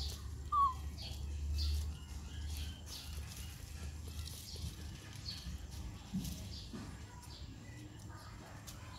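Leaves and twigs rustling and crackling faintly as a baby macaque pulls at and chews leafy branches, with one short high squeak about half a second in and a low rumble over the first two seconds.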